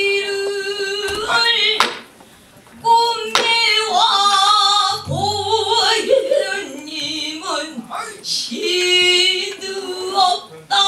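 A female pansori singer holding long, wavering notes and sliding between pitches. She breaks off for under a second about two seconds in, then goes on in bending phrases. Sharp knocks and a low stroke about five seconds in come from the buk barrel drum that accompanies her.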